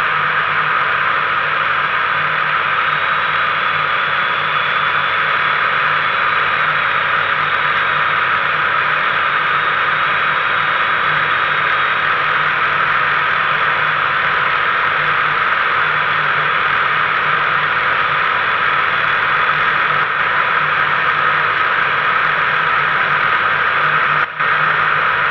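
Wind rushing over a camera mounted on a microlight trike's wing, with the steady drone of the trike's two-stroke Rotax engine underneath. The sound cuts out for an instant near the end.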